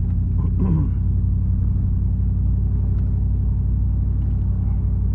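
Vehicle engine running steadily with a low drone, as when driving at a constant speed.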